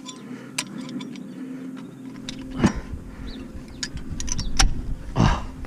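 Metal clicks and clinks of a new front brake pad and its spring clip being worked into the caliper carrier, with a heavier knock about halfway through and another near the end.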